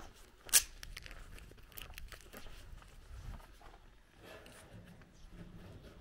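Footsteps crunching on a gravel lane, irregular and crackly, with one sharp loud click about half a second in.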